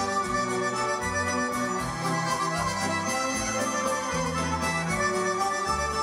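Two piano accordions playing a melody in duet, accompanied by a string orchestra, with a bass line moving in short steps underneath.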